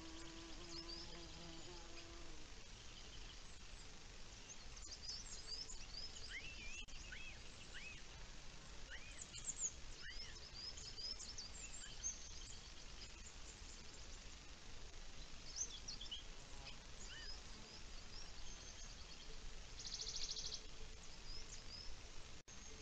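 Small wild birds chirping and calling in short, scattered high notes over a steady outdoor background hiss, with a short buzzing trill about twenty seconds in. A faint low drone sounds during the first two seconds.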